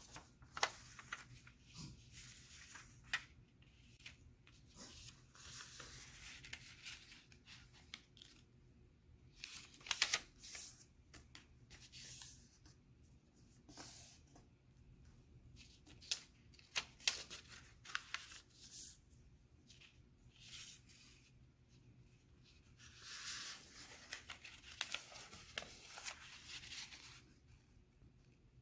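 Square sheet of origami paper being handled and folded: irregular crisp crackles, rustles and sharp clicks as it is turned over, folded into a triangle and creased, with a few longer swishes of paper sliding.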